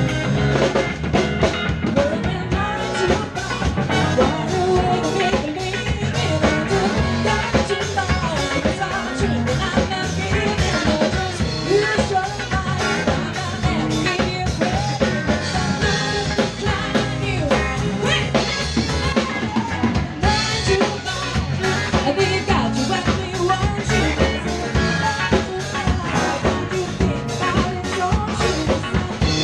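Live band playing an upbeat rock number: electric guitar and a Yamaha drum kit keeping a steady beat, with a woman singing.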